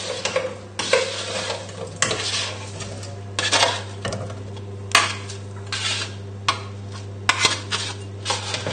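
Spatula scraping roasted vegetable chunks across a baking tray and pushing them into a saucepan: irregular scrapes and knocks as the pieces tumble in, over a steady low hum.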